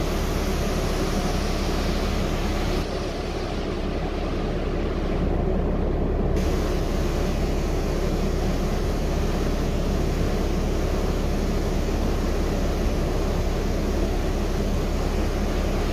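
Interior ride noise of a Gillig trolley-replica hybrid transit bus under way: a steady rumble of drivetrain and road. It dips a little about three seconds in, then builds back up.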